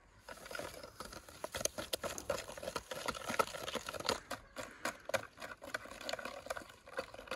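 A wire balloon whisk beating eggs and sugar in a plastic mixing bowl: a fast, uneven clatter of the wires striking the bowl's sides.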